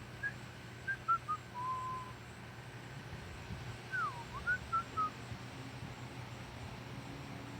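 A person whistling a loose tune in short notes, with one longer held note about one and a half seconds in and a quick downward slide about four seconds in.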